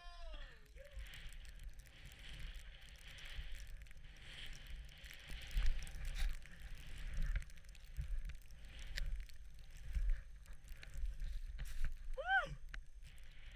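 Skis running through deep powder snow, a steady hiss of snow spray with wind buffeting the action-camera microphone in uneven low gusts. A voice trails off in the first second, and a brief high-pitched yell rises and falls near the end.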